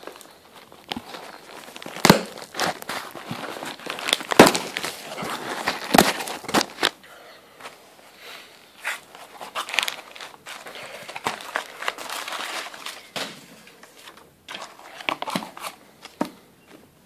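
Crumpled kraft packing paper crinkling and a cardboard shipping box being handled, in irregular crackles with sharp knocks, the loudest about two, four and six seconds in.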